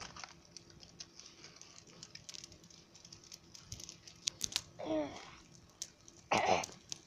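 Small fire of burning cardboard crackling, with irregular sharp pops and ticks. A short voice-like call comes about five seconds in and a louder one about six and a half seconds in.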